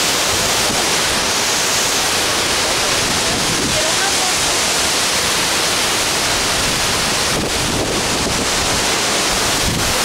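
Cusárare waterfall: loud, steady rushing of water falling onto rocks, close by, with no pauses or changes.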